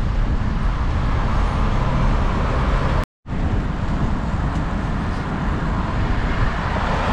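Wind rushing over a bike-mounted camera's microphone while cycling, with a deep rumble and tyre noise on tarmac. The sound cuts out for a split second about three seconds in.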